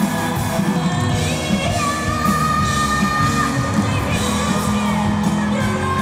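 Live pop song amplified over the stage sound system: a female singer singing over a band, holding a long note about two seconds in, with some yells from the audience.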